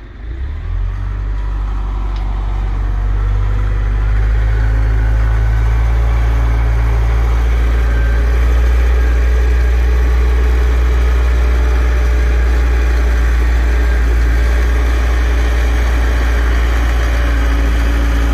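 A wheel loader's diesel engine working. It grows louder over the first few seconds as the machine drives its bucket into the manure pile, then runs steadily.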